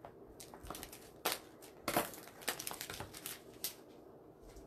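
Craft ribbon and supplies being handled: irregular crinkling and rustling with light clicks and taps, loudest about two seconds in.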